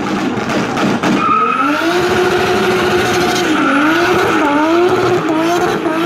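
V8 muscle car held at high revs with tyres squealing, as in a burnout. The sound swells in the first second, then holds, its pitch wavering up and down toward the end.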